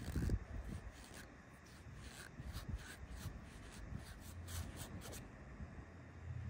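Paper shop towel rubbing and wiping a rusty threaded steel pipe fitting clean, in a run of short, irregular rubbing strokes.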